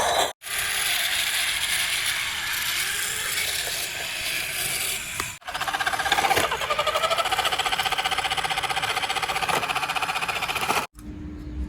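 Small motors of toy RC construction vehicles whirring and buzzing, in short clips cut together with abrupt breaks; a fast, even buzz fills the later part.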